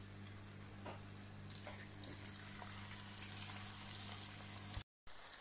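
Hot oil bubbling and crackling faintly in a pan as spoonfuls of potato pakora batter are dropped in, with a few light clicks, over a steady low hum. The sound cuts out briefly near the end.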